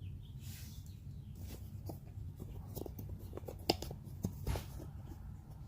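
Hands rummaging through and handling small items, a scatter of light clicks and rustling scrapes with one sharper knock a little past the middle, over a steady low hum.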